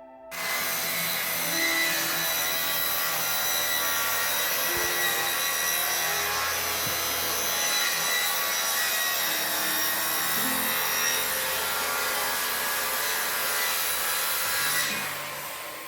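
Power saw cutting through plywood in one long, steady cut that stops about a second before the end.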